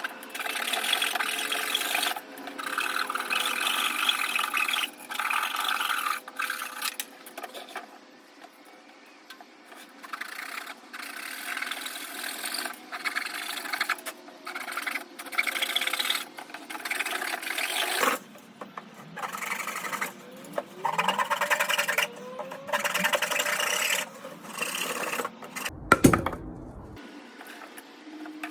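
Cardboard being cut or sawn by hand: repeated rasping strokes with short pauses between them. Near the end comes a single loud thump.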